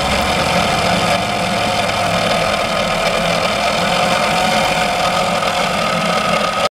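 Meccano model horizontal steam engine driven by a small electric motor through a rubber belt, running steadily: a continuous mechanical whirr with a faint hum from the motor and its metal crank and linkage.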